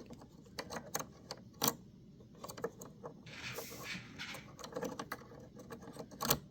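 Scattered small plastic and metal clicks and taps as the bobbin cover plate of a Brother SE630 embroidery machine is handled and fitted back into place, with a short rustle about three and a half seconds in.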